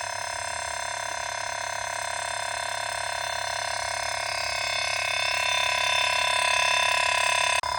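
A dense night chorus of frogs and insects: many steady, unbroken trills layered on top of one another. It breaks off abruptly for an instant near the end.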